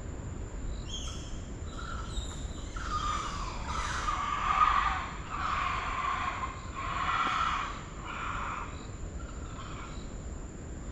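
A troop of Geoffroy's spider monkeys calling: a series of wavering, high-pitched whinnying calls that build to their loudest about halfway through and fade out near the end. The calls are ones the observer takes for a dispute within the group rather than alarm at him.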